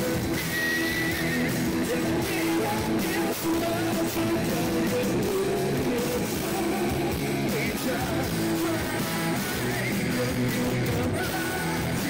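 Rock band playing live: a male lead singer over electric guitar and keyboards, with sustained notes held throughout.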